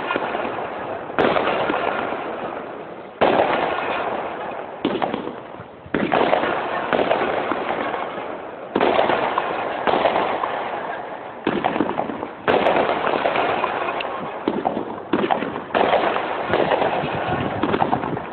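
Firecrackers going off in a long run: sudden loud bursts every one to three seconds, each trailing off into crackling.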